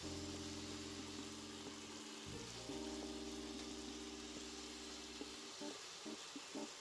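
Pot of duck stew sizzling as it slowly braises in its own juices, a steady hiss, under soft background music with held chords that change a couple of times.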